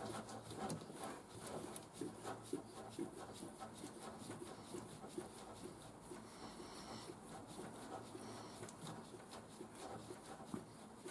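Hand-priming lever on a 200TDI diesel's mechanical fuel lift pump being worked up and down, a faint rapid rhythmic clicking as it pumps diesel through the fuel filter to push the air out.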